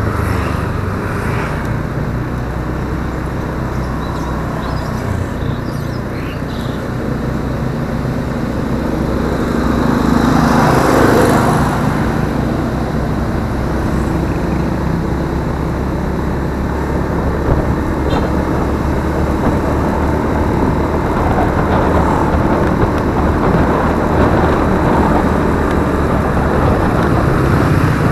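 Honda automatic scooter's small single-cylinder engine running steadily under way, with road and traffic noise around it. A louder rushing swell about ten seconds in.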